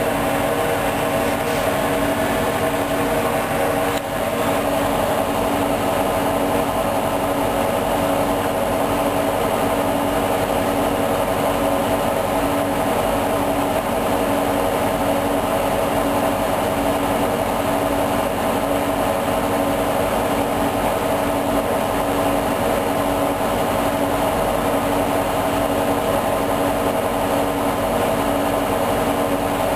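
Hoover DYN 10124 DP washing machine spinning at a steady high speed: a constant motor whine over the rumble of the drum, with a brief dip about four seconds in.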